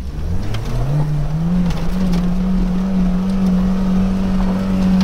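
The 1984 Toyota pickup's fuel-injected 22RE four-cylinder engine revs up about a second in and then holds steady high revs under load as the truck climbs a steep, loose dirt hill, heard from inside the cab.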